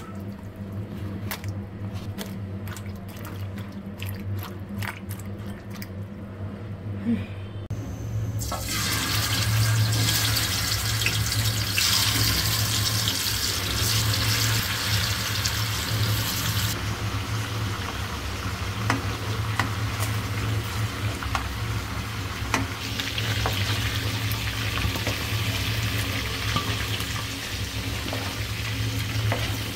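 Cut green banana pieces being swished by hand in a bowl of water, with small clicks and splashes. About eight seconds in, a loud, steady sizzle starts as chicken pieces fry in hot oil in a pan. It eases somewhat after the midpoint and carries on.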